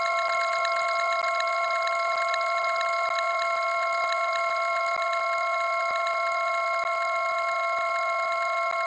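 Continuous electric ringing sound effect, a steady cluster of high tones with a fast flutter, with no pauses between rings.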